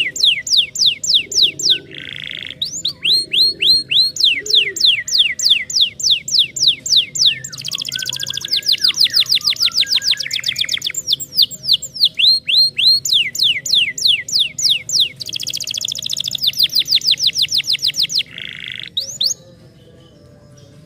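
Canary singing a long song of quick, repeated notes that each slide down in pitch. Twice the notes run together into fast rolls. The song stops near the end.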